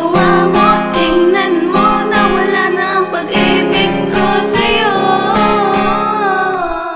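Closing bars of a Tagalog love song: a female voice sings a wavering melody over plucked guitar and a low, regular beat.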